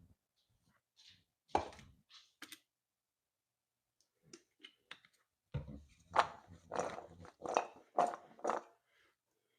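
Knocking and clattering of kitchen food prep: a single knock, a few faint clicks, then about six knocks in quick succession, around two a second.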